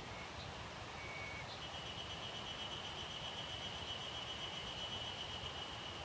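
Forest ambience: a steady soft hiss of air and leaves. A short high whistled note comes about a second in, then a long, steady high-pitched whistle starts at about one and a half seconds and holds to the end.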